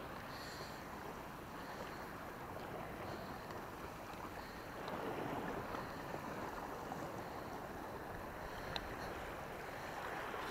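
Steady wash of the sea and wind, swelling a little about five seconds in, with one faint sharp click near the end.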